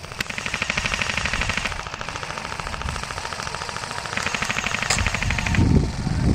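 Airsoft guns firing on full auto: a continuous rapid rattle, with two longer, louder bursts of about a second and a half each, and a low rumble near the end.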